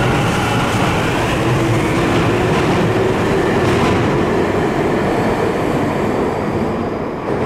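Tokyu 5050-series electric train accelerating away from the platform: the whine of its Hitachi IGBT VVVF inverter and open four-pole induction motors over wheel and rail noise, with a tone that rises through the middle. The sound fades as the rear of the train draws away, with one sharp knock near the end.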